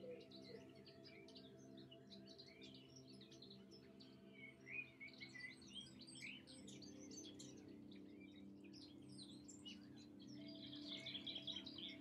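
A chorus of small birds chirping and singing, many short calls overlapping and growing busier near the end. Soft, steady background music with held notes sits faintly underneath.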